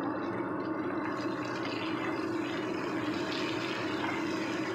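Dried salted baby squid, sliced chilies and aromatics sizzling in hot oil in a wok, with spatula stirring getting under way about a second in. A steady low hum runs underneath.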